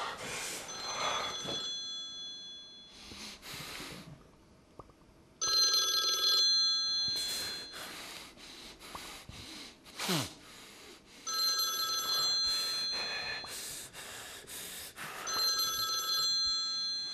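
A phone ringing with an electronic ringtone: four rings, each about a second long, a few seconds apart.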